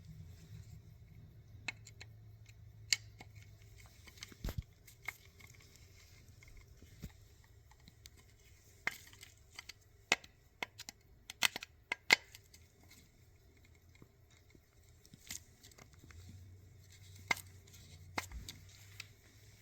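Scattered sharp clicks and light metallic taps as a Rochester Quadrajet carburetor is handled and its screws are checked, with a quick cluster of clicks about midway. A faint low hum lies underneath.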